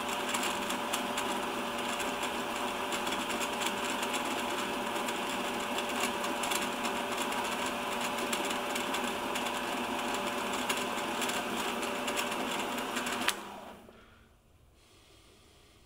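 MX210V mini metal lathe running, a steady mechanical hum with several whining tones. About thirteen seconds in it is switched off with a click and the spindle quickly spins down to quiet.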